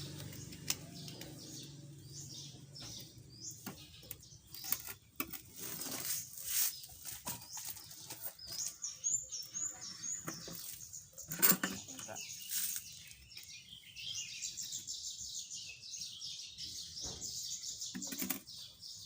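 Small birds chirping and singing in a fast, warbling run, with scattered clicks and knocks of things being handled, the loudest a sharp knock about halfway through.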